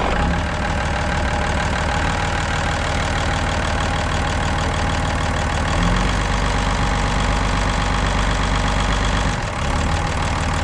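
Small tractor engine idling steadily just after being started, its note shifting about six seconds in and again near the end.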